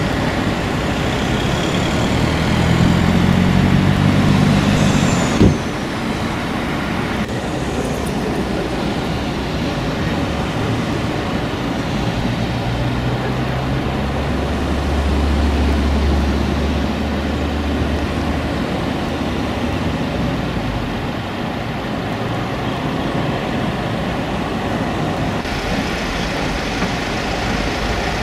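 Road traffic noise with heavy vehicle engines running: a low engine drone rises and falls twice. There is a single sharp click about five seconds in.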